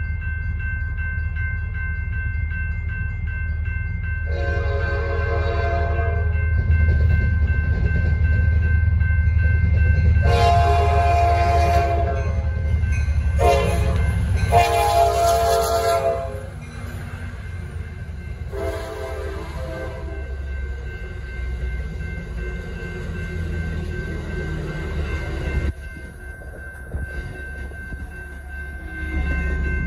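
Railroad crossing bell ringing steadily while an approaching Amtrak San Joaquins passenger train sounds its horn in four blasts for the grade crossing, with the train's rumble growing louder through the horn sequence. Near the end the train rolls through the crossing.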